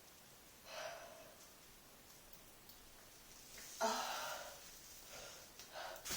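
A person breathing: a faint breath about a second in, a louder sigh-like breath with a brief voiced start about four seconds in, then a few short, quick breaths near the end.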